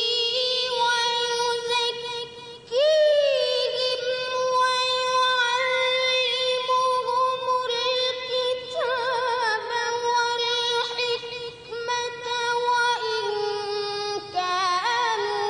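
A boy's high voice reciting the Quran in melodic tajweed style, drawing out long held notes with quick wavering ornaments, and a short break about three seconds in.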